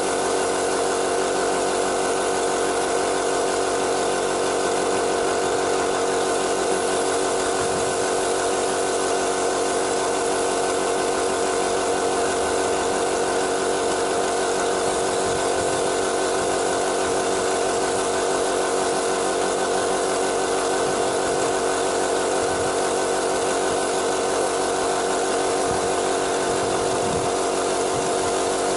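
Electric air compressor running steadily, a constant mechanical hum with a hiss of air over it, as it feeds a compressed-air paint spray gun spraying primer.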